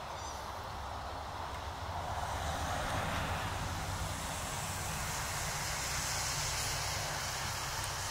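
Steady outdoor background noise: a low rumble under a broad hiss that swells a couple of seconds in and eases near the end, with no bird calls standing out.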